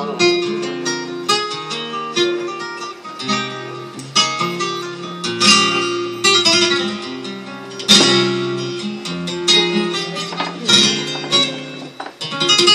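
Flamenco guitar played live: runs of picked single notes and chords, with loud strummed chords about five and a half and eight seconds in.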